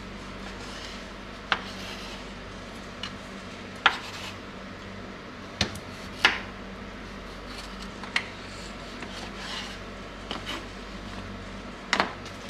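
Kitchen knife slicing tomatoes on a wooden cutting board: the blade knocks sharply on the board about eight times at uneven intervals, a second or two apart, with softer sounds of the blade passing through the fruit between the knocks.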